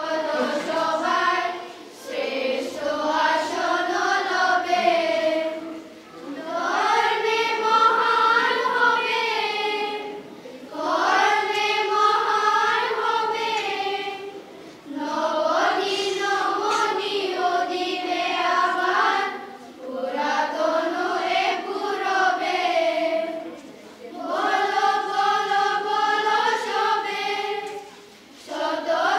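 A children's choir singing a patriotic group song, unaccompanied, in phrases of about four seconds with short breaths between them.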